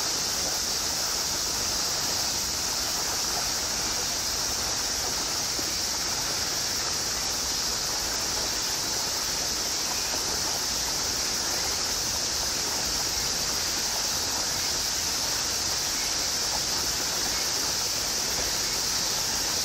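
Summer cicada chorus: a steady, high-pitched sizzling hiss that holds unchanged throughout.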